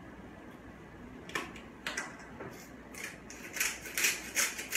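Salt shaken from a small shaker into a blender jar: short rattling shakes, a few at first, then about four or five a second from about three and a half seconds in.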